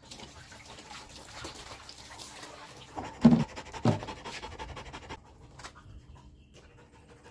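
Dirty water poured from a portable spot cleaner's tank into a plastic bucket, then two short loud knocks a little past three seconds in as the tank is put down.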